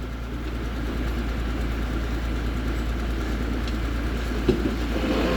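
Heavy diesel machinery engine running steadily, a little louder after the first second.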